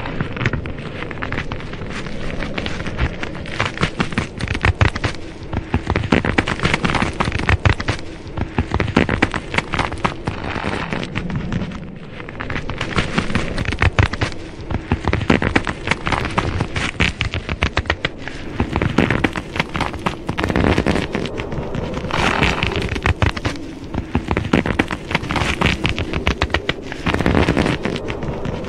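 Sound effect of a tight, straining grip: a dense crackling rumble over a steady low hum, swelling and easing in waves and dipping briefly about twelve seconds in.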